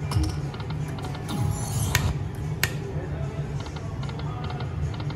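Aristocrat Lightning Link 'High Stakes' poker machine being played: a few sharp clicks, the loudest about two seconds in, and short rapid runs of electronic ticks as the reels spin and stop, over a steady low hum of casino background noise.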